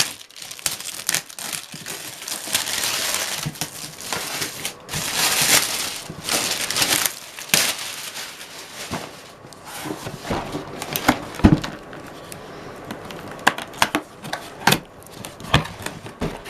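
A cardboard model-kit box and its packaging being opened by hand: rustling, crinkling and scraping in the first half, then scattered sharp clicks and knocks as the contents are handled.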